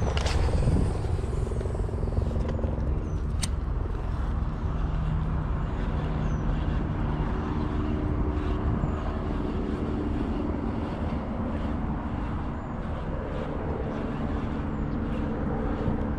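Steady low engine rumble with several hum tones that shift in pitch partway through, and a single sharp click about three and a half seconds in.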